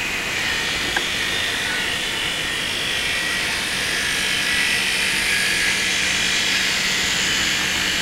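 Cicadas buzzing in a dense, steady chorus that swells slightly in the middle, over a faint low hum, with a single click about a second in.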